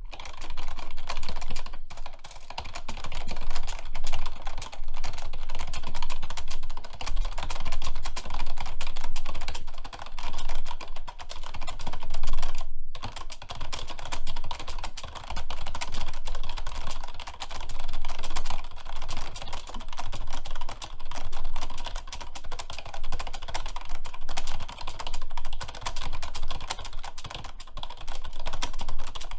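Fast, continuous typing on a computer keyboard, a dense run of key clicks with a couple of brief pauses.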